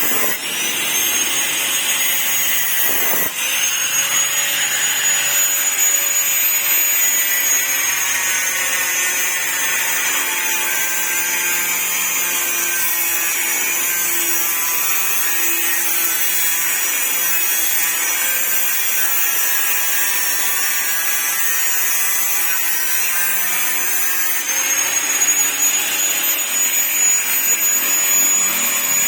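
A power tool running continuously with a high whine over a rasping noise. The whine dips in pitch about a third of the way in and rises again near the end, when the tool gets louder.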